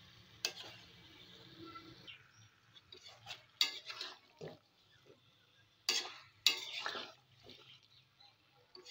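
A spatula scraping and stirring through thick chicken, potatoes and rice in a pan, knocking sharply against the pan four times, as the mixture is fried down.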